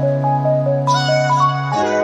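Soft background music: a gently repeating melody over held bass notes, with a brighter lead tone coming in about a second in.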